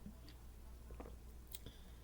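Quiet room tone with a steady low hum and a few faint, soft clicks and taps.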